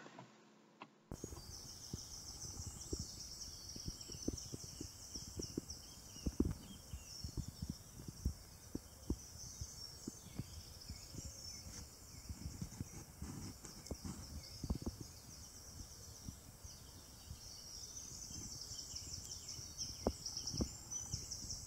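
Woodland birds singing faintly, many high-pitched songs overlapping, over irregular low thumps and rumbles on the microphone. It starts about a second in.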